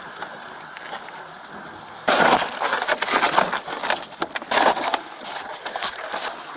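A low steady hiss, then about two seconds in a sudden loud stretch of crunching and rustling: a police officer hurrying on foot toward a crashed car over the roadway.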